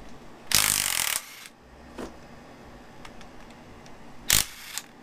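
Tools working the bolts of an engine accessory during a teardown: a loud noisy burst lasting under a second about half a second in, a click at about two seconds, and a sharp metallic clink near the end.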